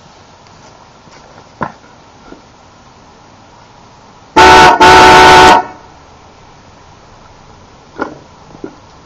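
A set of 1987 Cadillac Delco shell horns (D, F and A notes) sounding together as a chord on a pickup truck: two very loud honks, a short one followed at once by a longer one.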